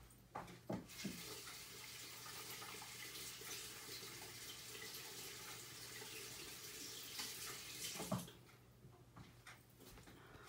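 Water running from a tap for about seven seconds, a steady hiss, then cut off with a short knock.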